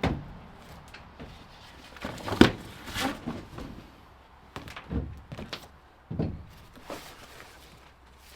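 Irregular thuds and knocks, about six of them, with the loudest about two and a half seconds in.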